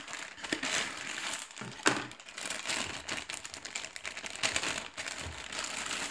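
Clear plastic bag crinkling as a bagged USB cable is handled and lifted out of a cardboard box, with one sharp click about two seconds in.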